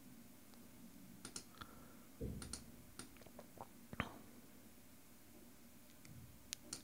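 Faint, scattered clicks of a computer mouse and keyboard during photo editing, about a dozen, with a soft knock a little after two seconds and the sharpest click about four seconds in.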